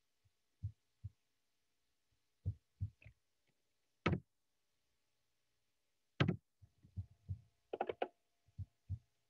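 Scattered soft knocks and clicks at irregular intervals, a sharper click about four seconds in and another about six seconds in, with dead silence between them.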